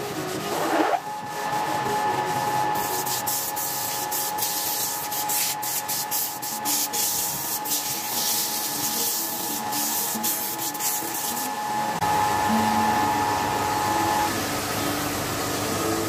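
Wood lathe spinning a turned wooden vase with a steady motor whine, while the vase is sanded by hand on the lathe, a continuous rubbing hiss. The sanding hiss stops about twelve seconds in.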